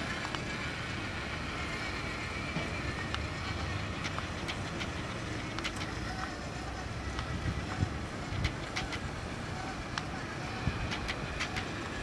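Small electric motor and gears of a cardboard RC road roller whining steadily as it drives over grass and dirt, with scattered sharp clicks, most of them in the second half.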